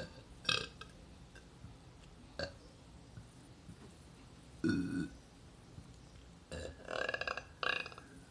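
A boy burping several times: two short burps early, a deeper one about five seconds in, then a long, pulsing burp lasting over a second near the end.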